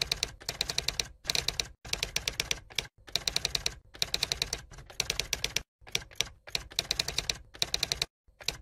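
Typewriter typing sound effect: rapid keystroke clicks, about a dozen a second, in short runs with brief gaps between them, as text is typed out on screen.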